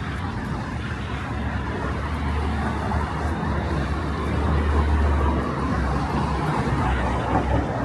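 Road traffic on a busy city street: a passing vehicle's low engine rumble swells, loudest about five seconds in, over a steady wash of traffic noise.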